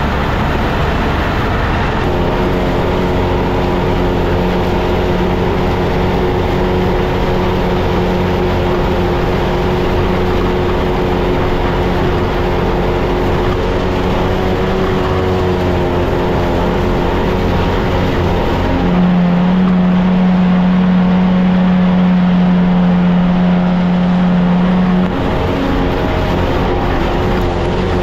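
Tractor engine running steadily under work. Its note shifts about two seconds in, and a louder low hum comes in from about 19 to 25 seconds before the sound settles back.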